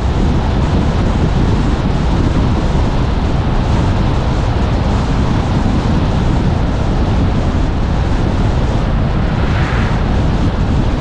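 Steady wind noise rushing over a hood-mounted GoPro's microphone on a moving Jeep, mixed with the low rumble of the tyres on the road.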